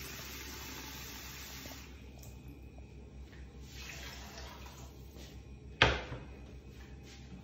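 Water running steadily and stopping about two seconds in. Near the end comes one sharp, loud clack of a drinking glass set down on the counter.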